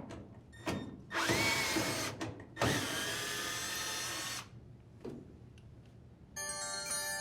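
Drill driver running twice, about a second and then nearly two seconds, backing out two screws from a dryer's front panel lip. The motor whine rises as the first run spins up, and falls as the second winds down. Light clicks of handling come between the runs.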